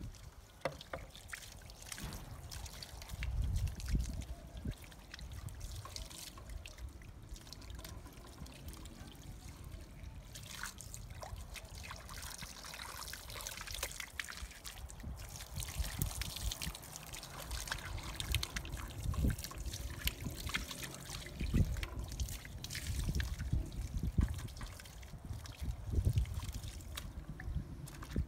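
Water trickling from a hose onto a soaked rug lying on concrete, with the soft low thumps of bare feet treading on the wet rug.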